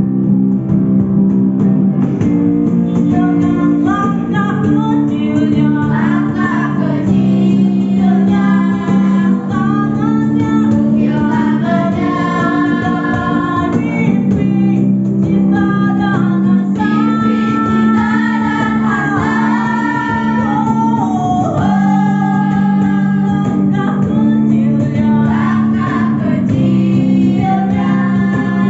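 A song performed with singing voices over steady guitar chords.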